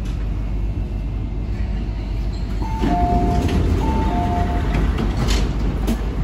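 MTR C-train saloon doors sliding open at a platform. A two-note chime, high then low, sounds twice as they open, over the train's steady low hum. A couple of short clicks follow near the end.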